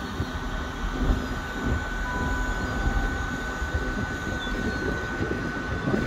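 A GWR Intercity Express Train standing at the platform, giving a steady high-pitched whine over a low, uneven rumble. A second, lower tone joins briefly about two seconds in.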